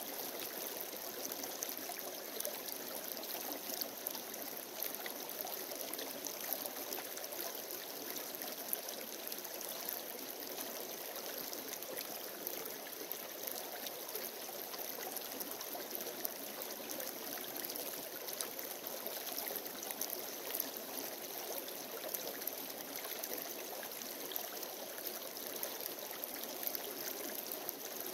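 Shallow creek running steadily over rocks and gravel, an even babble with no breaks.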